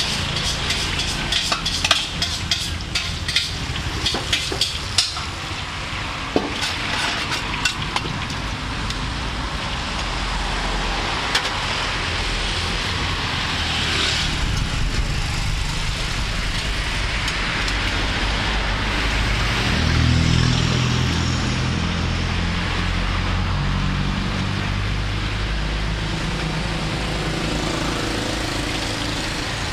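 Hot oil sizzling steadily in a large wok as battered durian and champedak pieces deep-fry. A metal ladle clicks and scrapes against the wok many times in the first several seconds. A low hum swells briefly about two-thirds of the way through.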